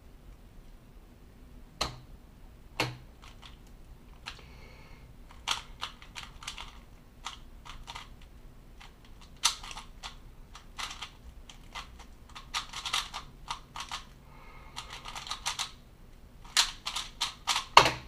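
A 3x3 speed cube being turned fast, its plastic layers clicking and clacking in quick runs of turns broken by short pauses, the runs growing denser near the end.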